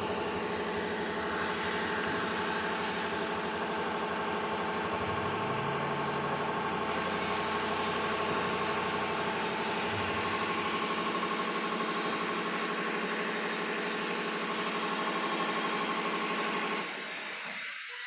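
Knitwear linking machine driven by its servo motor, running steadily at speed with an even whirring hum. Near the end it slows and winds down to a stop.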